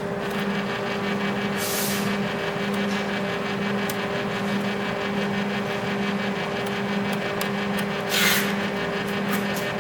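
Air-cooled fiber laser welding machine running: steady cooling-fan noise with a hum that pulses about twice a second, and two short hisses, about two seconds in and near the end.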